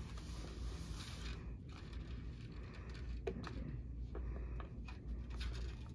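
Sterile paper wrapping of a Foley catheter kit rustling under gloved hands, strongest in the first second and a half, followed by a few light clicks and taps.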